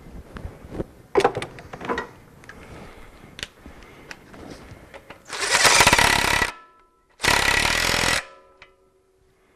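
Scattered light metal clicks and knocks, then two loud bursts of about a second each from an impact wrench, a little past halfway. The wrench is running down and tightening the castle nut on the lower ball joint stud.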